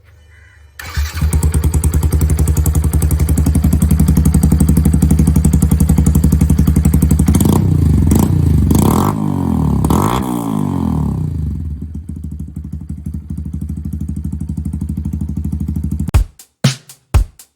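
Yamaha FZ V2's single-cylinder engine running loud through a replica Akrapovic free-flow exhaust. It comes in suddenly about a second in and runs steadily, is revved up and down a few times in the middle, and settles back to a lower, quieter run. It cuts off near the end, and a few sharp beats of music follow.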